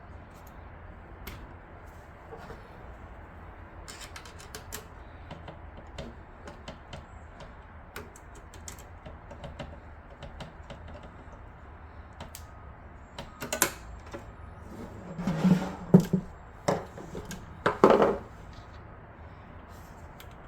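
Light clicks and taps of metal and plastic computer hardware being handled and fitted into a PC case, scattered throughout. Louder knocks and scrapes come in a cluster near the end.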